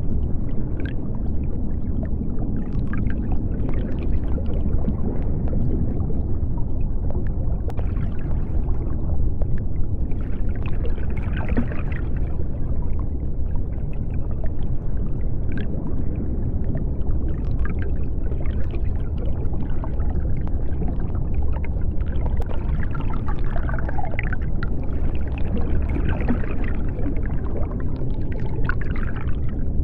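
Underwater ambience: a deep, steady rumble with scattered faint clicks and swishes above it.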